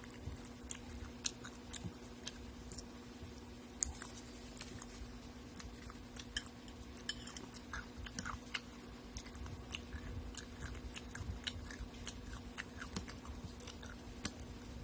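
A person chewing and crunching food close to the microphone, with many short, sharp clicks scattered throughout, the loudest about four seconds in, over a steady low hum.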